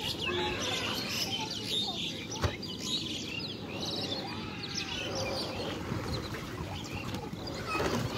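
Small birds chirping over the wet rustling and dripping of a fishing net being hauled into a boat, with one sharp knock about two and a half seconds in.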